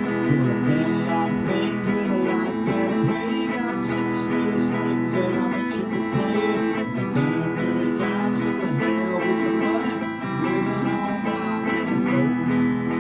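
Guitar strummed steadily, playing chords of a rock song during band practice.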